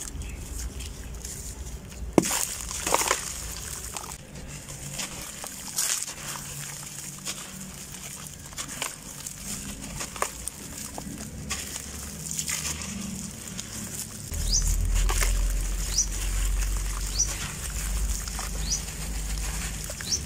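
Wet, gritty sand blocks being crumbled by hand into a bucket of water: crunching and crackling as the soaked blocks break apart, with grit and crumbs splashing and sloshing into the water.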